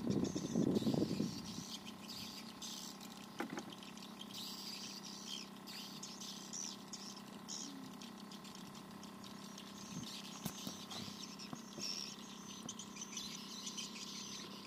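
Riverside ambience: patches of high-pitched chirping over a faint steady hum, with a louder low, muffled rumble in the first second or so.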